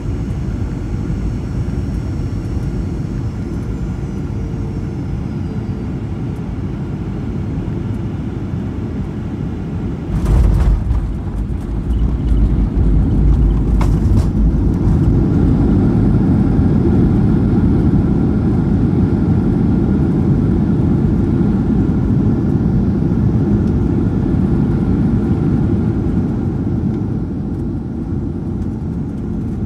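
Airliner cabin noise on final approach, then the wheels touch down about ten seconds in with a heavy thump and rumble, and a second thump follows a few seconds later. The engine noise then swells into a louder steady roar as the plane rolls out on the runway.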